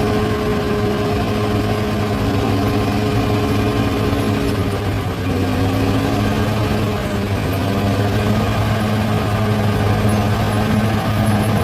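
Large crawler bulldozer's diesel engine running steadily with a deep hum, its note shifting slightly as it works.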